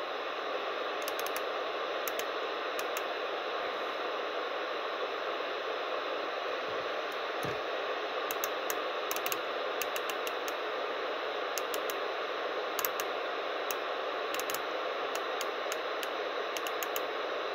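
Steady loud hiss of an unsquelched FM receiver from the KDK FM-2033 2 m transceiver's speaker, with scattered light clicks.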